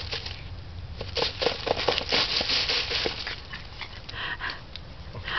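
Broom sweeping dry leaves, its bristles scraping and crackling in quick irregular strokes while a Boston terrier puppy tussles with it. A brief puppy sound comes about four seconds in.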